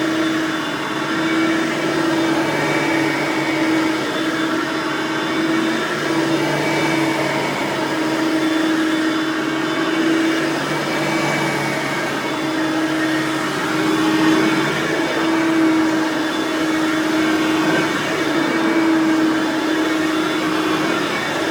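Hoover Platinum Collection lightweight bagged upright vacuum (UH30010) running, its 5.5 amp direct-air motor giving a steady whine over the rush of air, swelling and easing a little as it is run over carpet.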